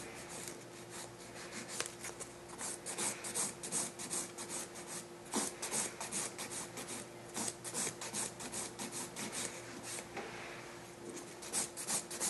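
Zebra hand file rasping back and forth over the surface of an acrylic nail in quick strokes, in runs with short pauses between them, filing the acrylic down thinner.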